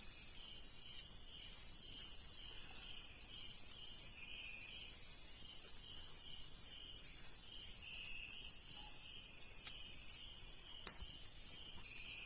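Night chorus of crickets and other insects: steady high-pitched shrilling with a pulsing call over it. Two faint clicks near the end.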